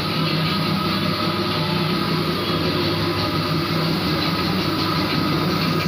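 Steady drone of a motor-driven machine running without change: a low hum with a hiss above it.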